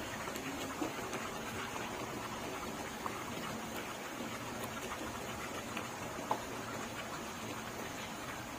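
Beef chunks cooking in a pot of oil and spices: a steady sizzle with a few small pops.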